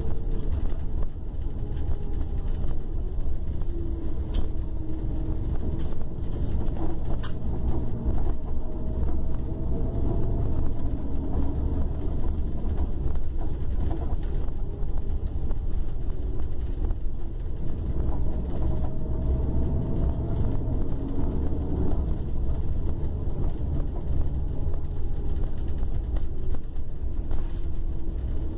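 Long-distance coach's diesel engine running while the bus is under way, a heavy low drone whose pitch slowly rises and falls several times as engine speed changes.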